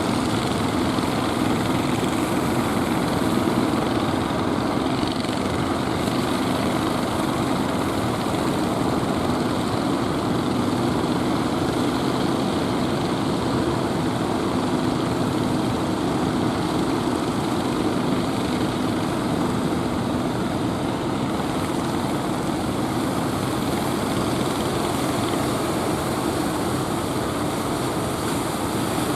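Fishing boat motor running steadily, a low hum over a constant rush of surf noise; the hum weakens about two-thirds of the way through.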